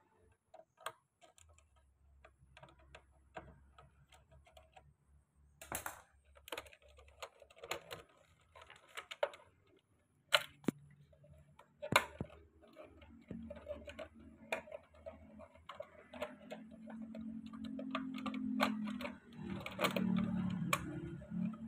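Irregular clicks, taps and small rattles of a screwdriver and hands working at the screws of a plastic electrical control-panel box, with a louder rubbing and scraping in the last few seconds as the box is gripped and shifted.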